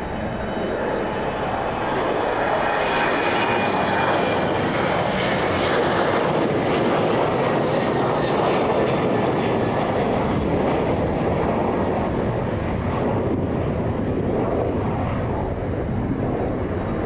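Jet airliner engines at high power on departure: a steady, loud rushing noise that swells to its loudest around the middle and eases slightly near the end.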